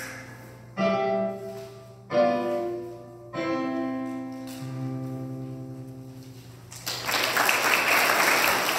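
Electronic keyboard playing a piano piece to its end: three struck chords, then a final chord held with a low bass note as it fades. About seven seconds in, the audience breaks into applause, which is the loudest sound.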